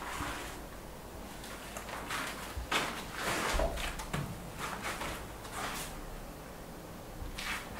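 Paintbrush swishing and scraping over a wall and a plastic drop sheet rustling under a kneeling painter: a run of short swishes, loudest about three seconds in.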